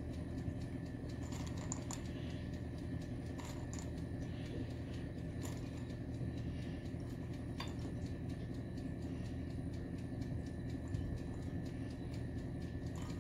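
Steady low hum with a few faint, scattered light clicks.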